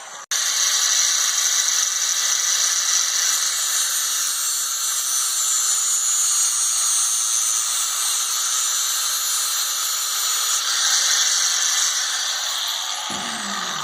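A high-speed power cutting tool running steadily as it cuts through 3/8-inch two-wire-braid hydraulic hose (100R2AT), a continuous high-pitched hiss and whine. It cuts out for an instant just at the start.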